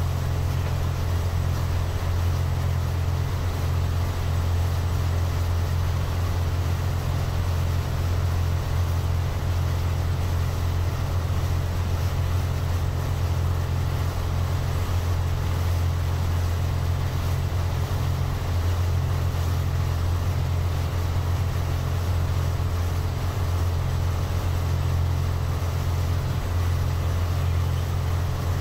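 Steady low drone of a boat's engine, heard from on board, over an even wash of water noise.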